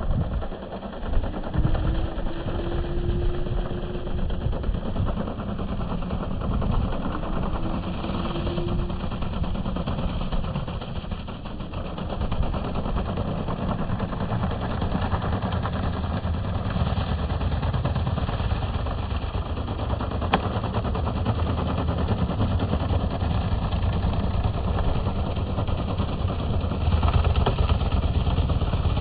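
Electric snow blower running steadily.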